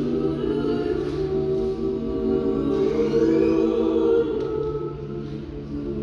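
Chamber choir singing long held chords, softening briefly about five seconds in.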